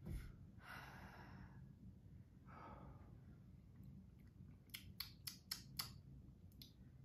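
Two long sighing exhales from someone whose mouth is burning from a very hot snack. Near the end comes a quick run of about five sharp clicks.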